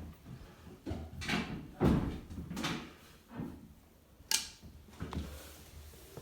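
Knocks, scrapes and rustling from hands working under a bathroom basin to turn the water isolation valves back on, with a sharp clack a little over four seconds in.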